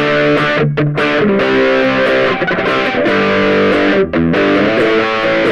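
Ibanez GAX30 electric guitar played through an overdrive pedal: loud, distorted chords ringing out with a few brief breaks between them.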